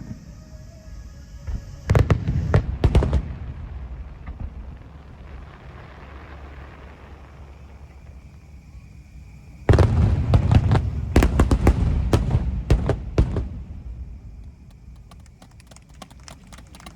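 Aerial fireworks bursting: a quick volley of booms about two seconds in, then a long, dense barrage of booms and crackling from about ten seconds in to past thirteen, with fainter rapid crackling near the end.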